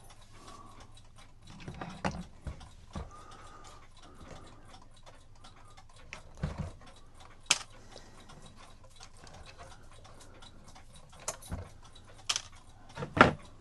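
Cuckoo clock movement being handled on a workbench: scattered knocks and clicks as its parts and strings are worked loose, the loudest near the end, over a faint continuous ticking.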